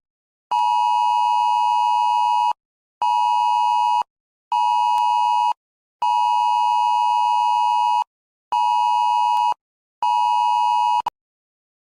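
Electronic alert tone for a tornado emergency: six steady beeps in a long, short, short, long, short, short pattern, cutting off cleanly between beeps.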